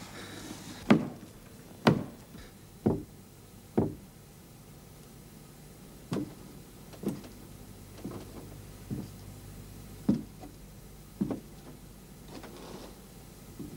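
Slow, heavy footsteps on wooden boards overhead, about one step a second, with a pause of a couple of seconds after the first four steps.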